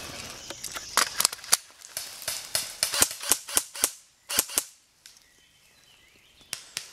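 AR-style airsoft rifle firing single shots in uneven quick succession, about a dozen sharp cracks, then a lull and a couple more near the end.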